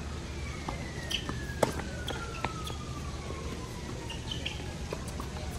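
Tennis ball being struck by racquets and bouncing during a rally: a few sharp pops, the loudest about a second and a half in. Behind them, a faint tone slides slowly downward in pitch over about four seconds.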